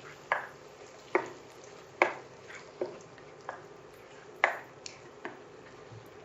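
Spatula scraping and knocking against a kadhai while stirring onion paste frying in oil and butter, about one short stroke a second.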